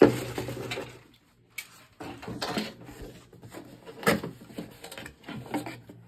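Cardboard packaging being handled: rustling and scraping of box flaps and inserts, with a sharp knock about four seconds in.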